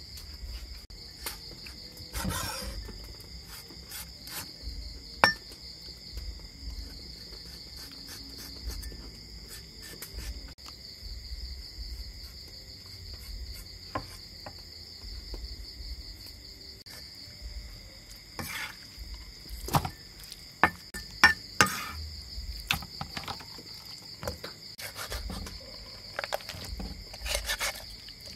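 A cleaver knocking on a wooden chopping block as chicken gizzards are sliced, in scattered single taps with a quicker run of louder knocks about twenty seconds in. Crickets chirp steadily underneath.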